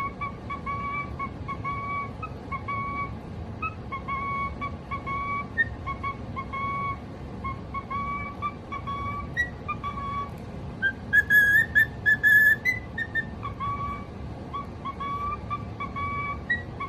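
Cockatiel whistling a tune: a long string of short, clear whistled notes, broken about eleven seconds in by a few louder, higher, harsher notes before the tune resumes.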